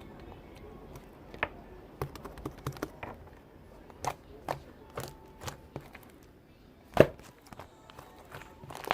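Gold pearl-glitter slime being squeezed and worked by hand, giving irregular wet clicks and pops as trapped air bursts, with one louder pop about seven seconds in.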